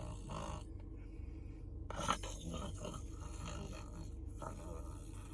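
A man imitating open-mouthed snoring: three raspy snores about two seconds apart.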